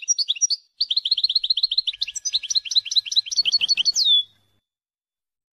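European goldfinch song from a Wadania-style copia (a song recording for teaching caged goldfinches): fast runs of short, repeated, falling notes at about ten a second, with a short break just before one second in. The song turns into a more varied twitter about two seconds in and ends just after four seconds on a falling note drawn out into a short held whistle.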